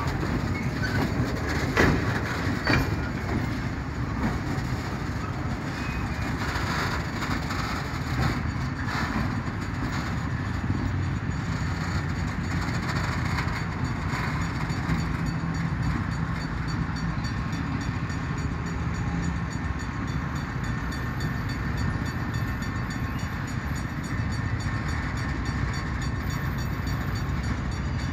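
Loaded mineral hopper wagons of a freight train rolling past on the rails, the wheels rumbling and clattering, with a few sharp knocks in the first three seconds. The last wagon passes about halfway through, and the train runs on away from the listener.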